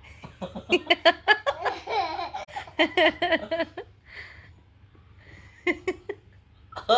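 Laughter in quick, choppy bursts of voice for about three and a half seconds, then a lull with soft breathy sounds, and two short laughing bursts near the end.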